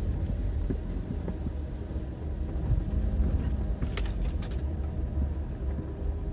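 Car driving along a dirt two-track: a steady low rumble, with a short cluster of sharp clicks or rattles about four seconds in.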